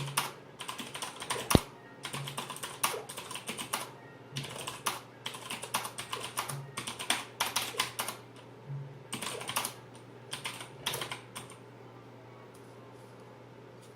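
Maxtill Blade Pro mechanical keyboard with Kailh Blue clicky switches being typed on in quick bursts of sharp clicks, with one louder strike about a second and a half in. The typing stops about 11 seconds in, leaving a few faint clicks.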